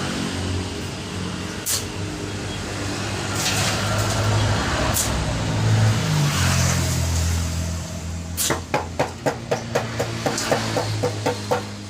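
A vehicle engine running steadily, its pitch shifting in the middle. In the last few seconds a quick run of sharp clicks, about four a second, comes over it.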